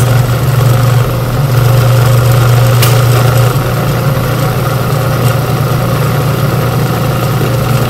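Old countertop blender's motor running steadily, puréeing peppers, onions, cilantro and garlic into sofrito: a loud, steady low hum that drops slightly in loudness about three and a half seconds in.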